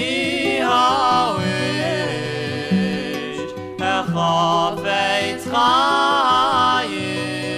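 Chassidic song from a 1967 stereo LP: a men's vocal group singing in harmony over acoustic guitars, in held, wavering phrases.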